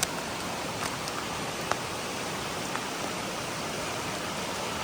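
A spring-fed stream swollen by flooding, rushing in a steady, loud wash of water. A few sharp ticks stand out over it, near one and two seconds in.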